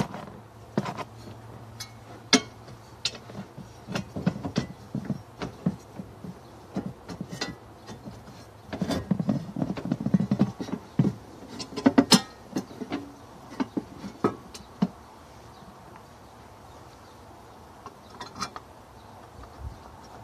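Hands refitting parts and a cable around a car battery in an engine bay: scattered sharp clicks, taps and clunks of plastic and metal, with a busier stretch of clattering about nine to twelve seconds in.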